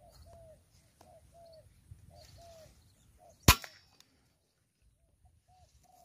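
Spotted doves cooing in short repeated notes, with a single sharp air-rifle shot about three and a half seconds in; the cooing goes on after the shot.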